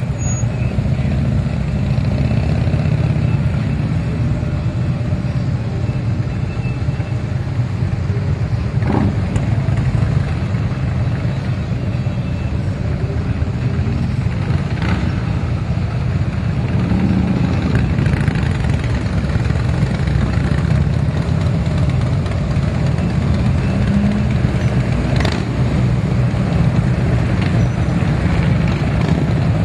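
Steady street traffic of motorcycles and cars passing by: a continuous low engine rumble from touring motorcycles, among them Harley-Davidson V-twins, mixed with car and pickup-truck engines, with a few faint sharp ticks.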